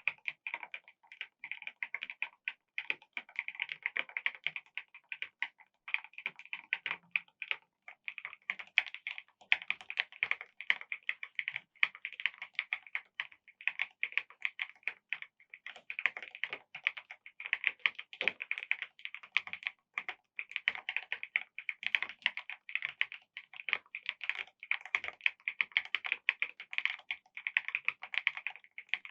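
Fast continuous typing on a mechanical keyboard fitted with aftermarket keycaps: a dense run of key clacks with a few brief pauses.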